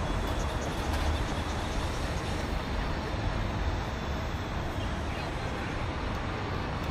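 Steady city street noise: a continuous low traffic rumble and hiss, with no distinct events.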